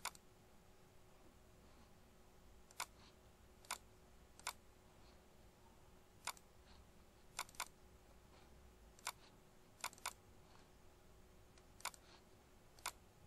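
Computer mouse clicking about a dozen times, some single clicks and some quick double-clicks, over a faint steady hum in a near-silent room.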